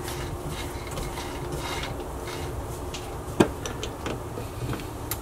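A T-handle key being fitted to and worked on the adjusting screws of a Burnerd Griptru lathe chuck: light scraping at first, then a run of metal clicks, with one sharp clack about three and a half seconds in. A faint steady hum lies underneath.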